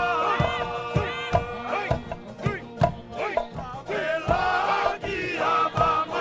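A group of voices singing and chanting a traditional Futunan mako dance song, with irregular sharp percussive strikes beaten along with it.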